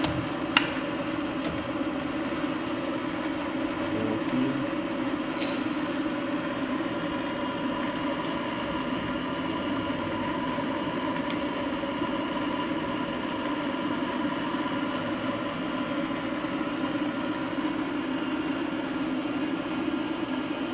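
Standard Modern 1333 gear-head lathe running with its spindle turning: a steady hum from the headstock gears and its 3 hp three-phase motor, with a faint whine. A sharp click sounds about half a second in.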